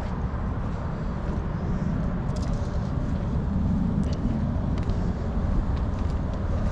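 Steady rumble of distant interstate highway traffic, with a few faint scattered ticks on top.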